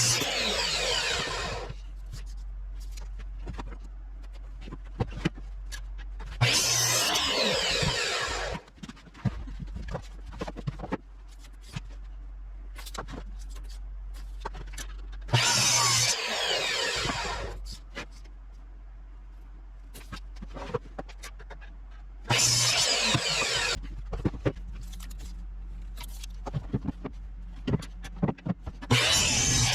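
A handheld power tool run in short bursts of about two seconds, five times with pauses of several seconds between, and scattered clicks and knocks of handling in the gaps.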